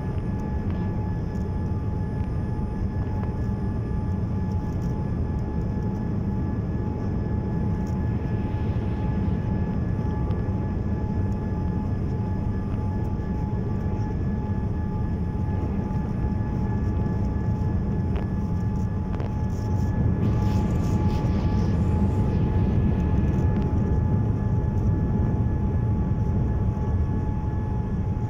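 Cabin noise inside a Boeing 787-8 on final approach: a steady low rush of airflow and engines with a thin steady whine over it. It grows a little louder, with added hiss, about twenty seconds in.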